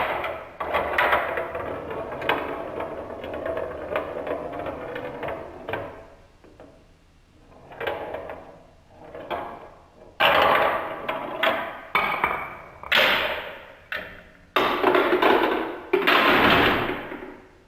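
Glass marbles rolling and rattling down a wooden marble run, a long continuous roll over the first several seconds, then a series of clacks and clattering knocks as they drop and hit the toy track pieces.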